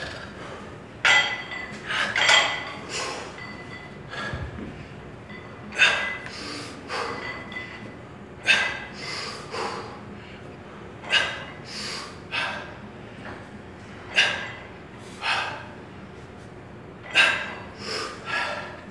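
A person breathing hard, with sharp, forceful exhalations in bursts every two to three seconds: the effort breaths of someone working through a weightlifting set.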